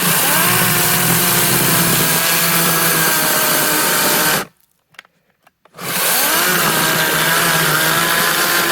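Cordless 40-volt electric chainsaw cutting through a thick piece of dry wood, in two runs. The motor whines up to speed and runs steadily for about four seconds, stops for a moment, then starts again about six seconds in.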